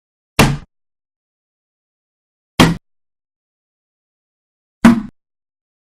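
Bullet impacts on plastic: three sharp hits about two and a quarter seconds apart, each lasting about a quarter of a second, with silence between them.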